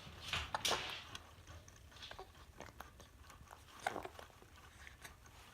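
A five-week-old baby hiccupping: short, sudden hiccups, the loudest about half a second in and another just before four seconds in, with faint clicking sounds in between.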